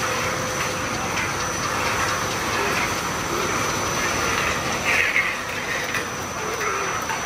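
Horizontal spiral strip accumulator running, steel strip sliding and turning around its roller bed: a steady metallic machine noise with a thin high whine over it, and a brief louder burst about five seconds in.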